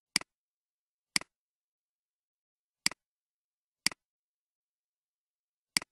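Computer mouse clicks: five sharp clicks, unevenly spaced a second or two apart, each heard as a quick double tick of the button going down and coming back up.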